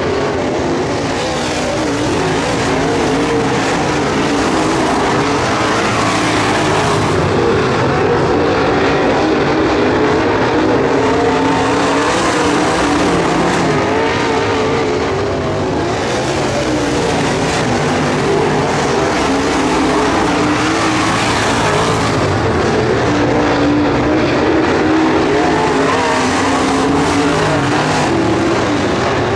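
A field of dirt-track modified race cars running laps on a dirt oval, their V8 engines loud and continuous, the engine notes wavering up and down as the cars go around.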